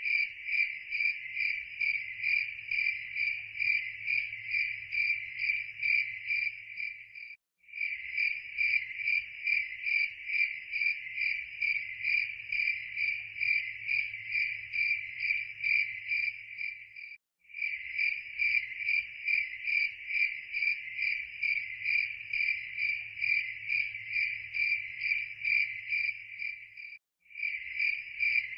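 Crickets chirping in a steady, rapid pulsing rhythm. The sound cuts out for an instant three times, about every ten seconds.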